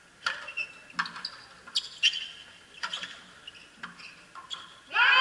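Frontenis rally: the rubber ball cracks sharply off the rackets and the front wall about once a second, with short sneaker squeaks on the court floor. Near the end a sudden loud burst of many voices breaks out.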